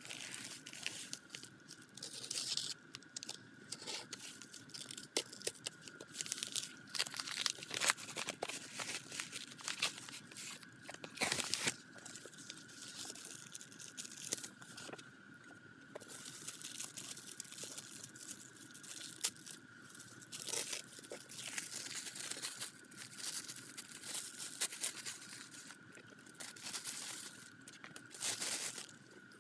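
Packaging being torn open and crumpled by hand: irregular tearing, crinkling and rustling, some strokes sharper than others.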